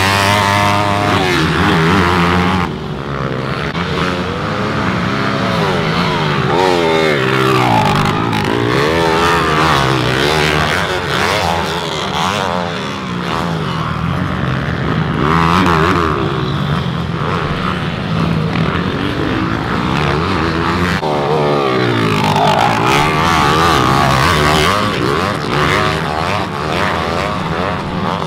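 Racing minibike engines revving hard, their pitch rising and falling again and again as the bikes accelerate, change gear and slow for corners, with more than one engine heard at times.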